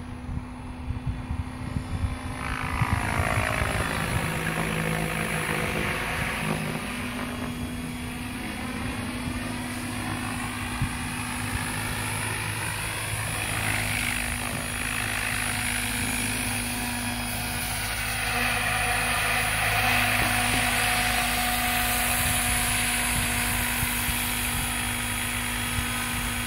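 Compass 7HV Ultimate, an electric 700-size RC helicopter, in flight: a steady rotor and motor hum that grows louder about three seconds in, swells and fades as the helicopter passes, and is loudest in the second half.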